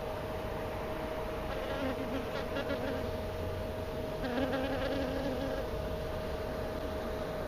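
Honey bee buzzing its wings close by in two spells, about two seconds in and again about four seconds in, each lasting over a second, over a steady background hum.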